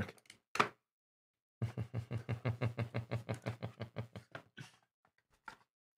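A man laughing in a long run of quick, even 'ha' pulses, starting about a second and a half in and tailing off before the end.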